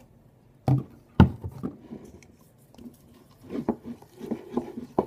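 Plastic containers and supplies handled on a table: two knocks about a second in, then runs of short soft clicks and rustling near the end.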